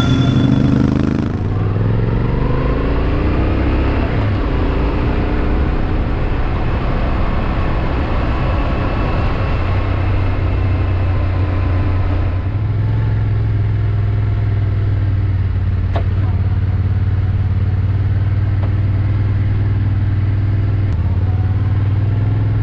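Yamaha Ténéré 700's parallel-twin engine running under way. It rises in pitch as the bike accelerates over the first few seconds, then holds a steady note at cruising speed.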